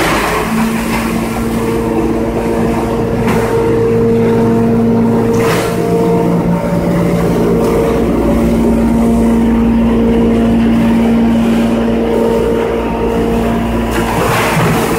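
Wood hammer mill running with its cyclone and rotary airlock valve: a loud, steady machine drone with a humming tone, broken by a few short surges of noisier sound.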